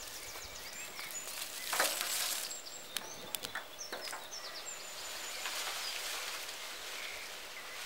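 Outdoor garden ambience: small birds chirping in short high notes, with rustling of dry branches and twigs and a few sharp crackles from a small fire of dry twigs burning in a metal barrel.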